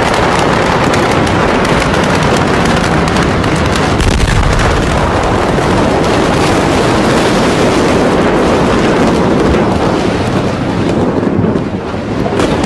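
Dense, continuous crackling and popping of fireworks going off in a burning warehouse, with a deeper bang about four seconds in. The crackling eases near the end.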